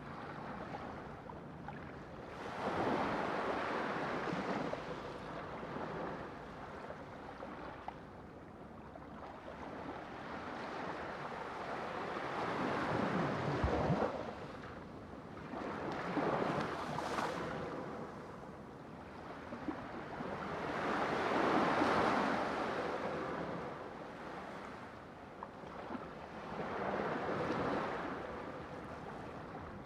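Sea waves breaking and washing onto a shore, the rush of surf swelling and receding every few seconds.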